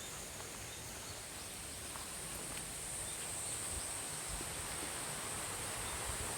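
Summer forest ambience: a steady high-pitched cicada drone that grows a little louder, over an even rushing hiss, with a few soft low thumps.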